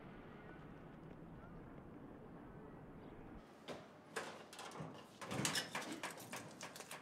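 A steady low ambient rumble. Then, after a cut, a rusty metal door or cabinet clatters and knocks as it is pulled open and handled, the loudest rattle coming in the last two seconds.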